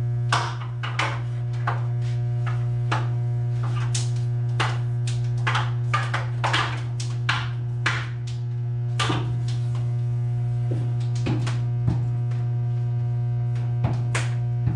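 Steady low electrical hum from two large 150 kVA transformers, with a ladder of fainter higher hum tones above it. Over it come frequent irregular clicks, taps and rustles of wire being handled and pulled into the breaker panel.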